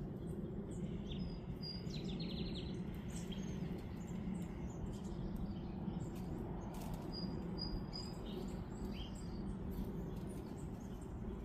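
Small birds chirping faintly in short high calls, including a quick run of notes about two seconds in, over a steady low background rumble.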